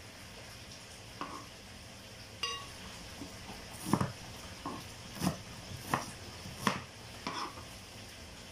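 Kitchen knife chopping a red onion on a plastic cutting board: a light ringing clink about two seconds in, then a run of about six knocks, roughly one every two-thirds of a second.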